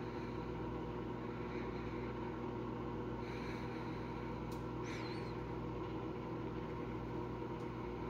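Microwave oven running, a steady electrical hum with its fan, while heating food in an aluminum tray that is not sparking. A few faint short squeaks sound over the hum, about three and a half and five seconds in.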